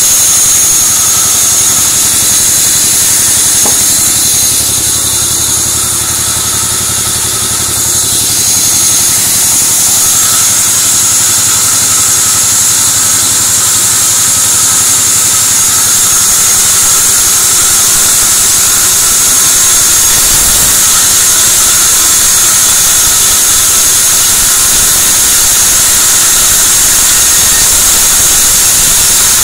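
Sawmill band saw running steadily while ripping white teak (gmelina) timber: a loud, constant high whine over hiss from the blade and machine.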